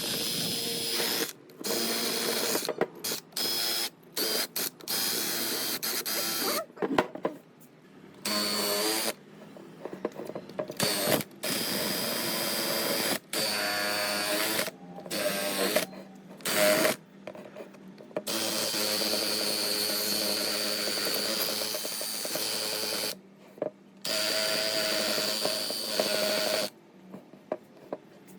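An electric power tool running with a steady whine, in stretches of a few seconds that start and stop abruptly.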